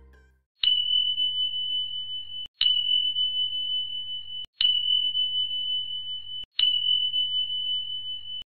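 Four identical electronic beeps, end-screen pop-up sound effects: each a single high steady tone that starts with a click and is held nearly two seconds, fading slightly, one about every two seconds.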